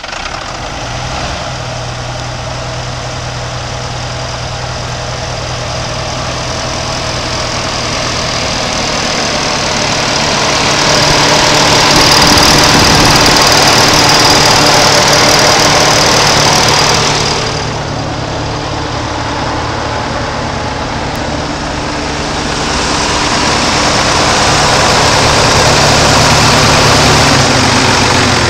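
1991 Ford L8000's six-cylinder diesel engine idling steadily just after starting. It grows louder about ten seconds in, drops back briefly, then grows louder again.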